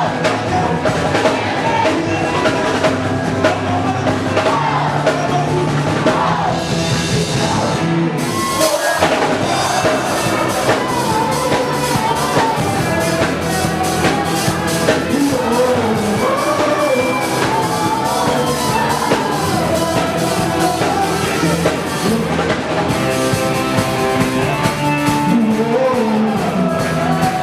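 Worship rock song with drum kit, bass and a singing voice; a brief drop near eight seconds in before the full band comes back.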